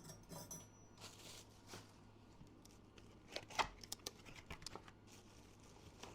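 Packaging being handled during an appliance unboxing: faint rustling and crinkling of wrapping, with scattered light clicks and taps and one sharper knock about three and a half seconds in.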